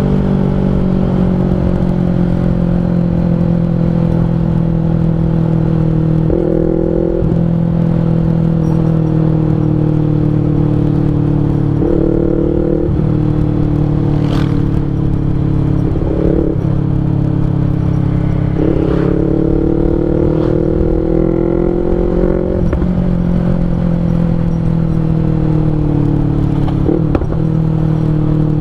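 Yamaha MT-25's parallel-twin engine running through an R9 H2 full-system aftermarket exhaust while the bike is ridden at town speed. The exhaust note is steady, sinking and climbing slowly with the throttle, with several brief jumps in pitch.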